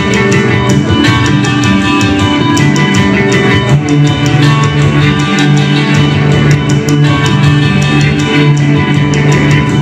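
Live band playing loud, dense guitar-led music, with a strong sustained low note and a steady beat of sharp hits.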